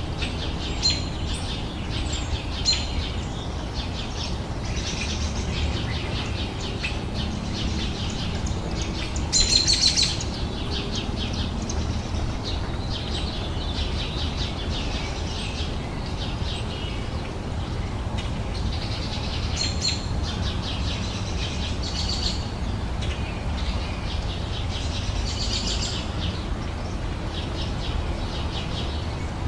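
Songbirds chirping and singing in short repeated trills, with a louder burst of chirps about nine seconds in, over a steady low rumble.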